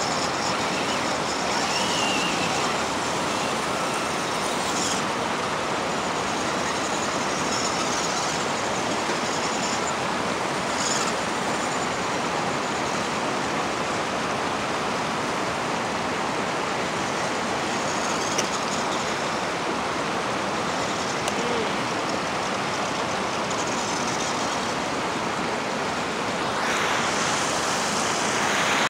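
Steady rush of river water flowing over the rock shoals.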